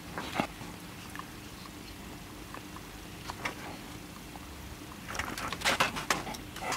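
Soldering iron touching and dragging along the fine-pitch pins of a surface-mount IC through liquid flux, the flux sizzling and spitting in short crackles, with a dense run of crackles about five seconds in. A faint steady hum sits underneath.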